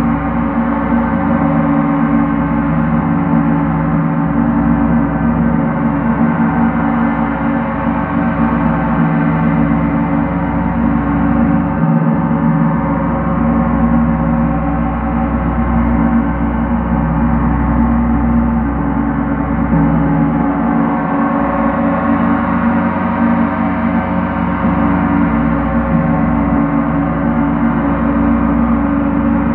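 Large gong kept sounding continuously by two felt mallets, building a steady, dense wash of many overlapping ringing tones with no single strike standing out.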